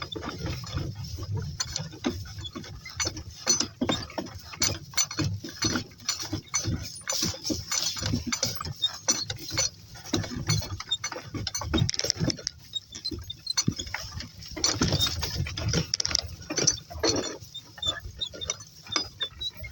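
A cart creaking and rattling as it rolls over rough ground, with many irregular knocks and clicks.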